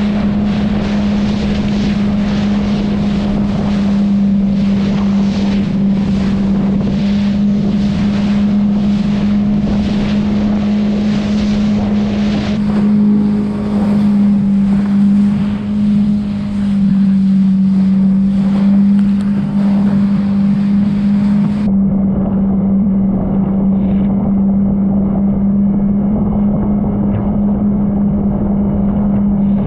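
Jet ski engine running at a steady cruising speed, a constant droning hum, under the rush of wind on the microphone and spray from the hull crossing choppy sea.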